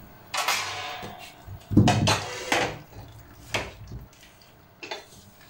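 A metal ladle knocks and scrapes in a stainless steel pot of boiled cabbage leaves as the leaves are lifted out of the hot water. There are two louder clattering bursts in the first half, then a few light knocks.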